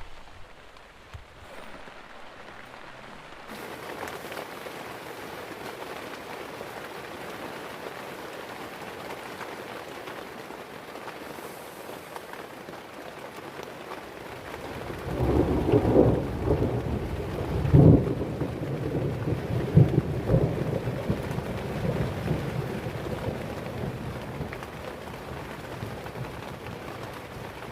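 Steady heavy rain falling. About halfway through, a long roll of thunder comes in, with several loud peaks over a few seconds, then rumbles away while the rain goes on.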